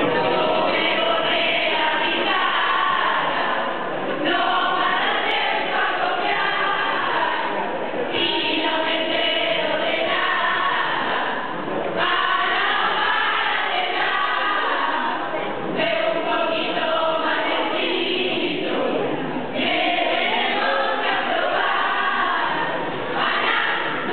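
A group of students, mostly girls' voices, singing a Spanish Christmas carol (villancico) together in unison, in phrases of about four seconds each.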